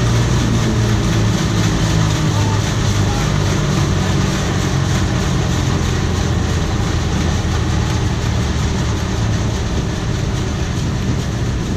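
A John Deere 7720 combine running at high throttle: a steady diesel drone with the dense rattle and whir of its threshing machinery.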